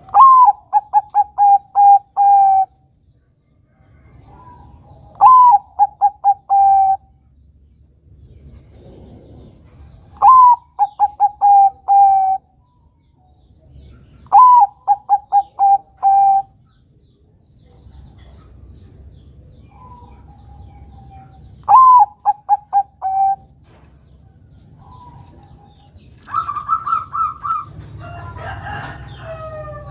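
Zebra dove (Bangkok perkutut) singing its cooing song five times, several seconds apart: each phrase starts with a rising-and-falling note, then runs into a quick series of short even coos. Near the end a different, higher call and a jumble of softer bird sounds come in.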